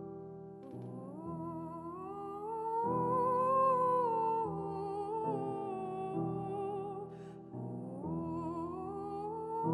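Wordless humming voice singing a slow melody that slides upward in long, wavering phrases, over sustained piano chords.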